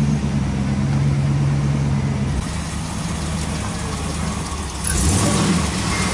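Motor vehicle engine idling steadily. Its low note shifts about two and a half seconds in, and about five seconds in a louder hiss joins.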